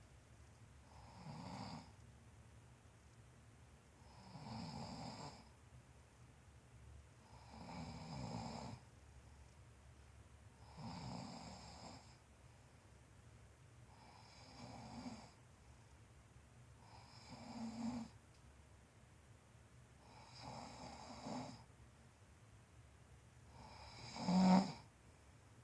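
A person snoring steadily, about one snore every three seconds, the last one near the end the loudest.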